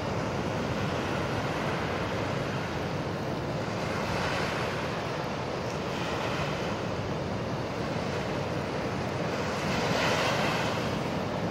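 Surf breaking on a sandy beach: a steady wash of waves that swells as a wave breaks about four seconds in and again near ten seconds.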